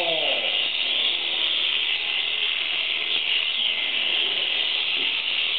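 Electric shearing handpiece running steadily as it cuts through an alpaca's fleece, a constant high buzz.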